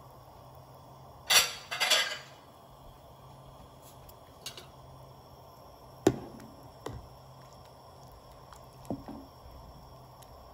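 A metal ladle stirring a pot of soup, knocking and clinking against the pot: two louder clatters a second or two in, a sharp clink about six seconds in, then a few softer knocks.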